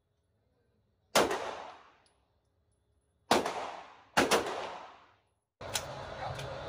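Three pistol shots from a 9mm Polymer 80 Glock 19 build, echoing in an indoor range: one about a second in, then two about a second apart near the middle. In the last second there is a steady background hum with a few light clicks.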